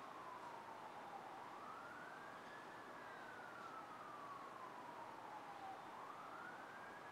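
Faint distant emergency-vehicle siren in a slow wail: the pitch slides down over a few seconds, then sweeps back up, about twice. Under it is a steady hiss of city traffic.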